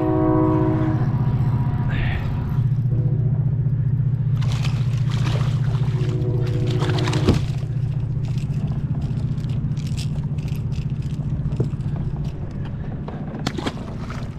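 A hooked small fish splashing and thrashing at the surface as it is reeled to the boat and swung aboard, with scattered sharp splashes and clicks, the loudest about seven seconds in. A steady low hum runs underneath.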